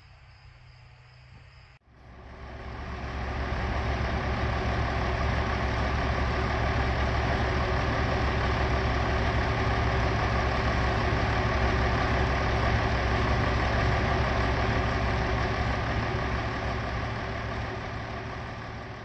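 Large farm tractor's diesel engine idling steadily, fading in about two seconds in and fading out near the end.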